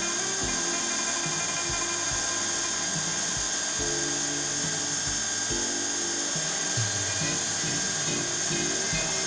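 Background music with a regular beat and melodic notes, over a steady high-pitched hiss.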